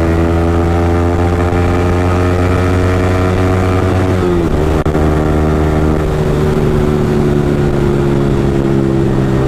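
Yamaha MT-15's single-cylinder engine through an Akrapovic exhaust, running steadily while being ridden. About halfway through its pitch steps down and then holds steady at the lower note.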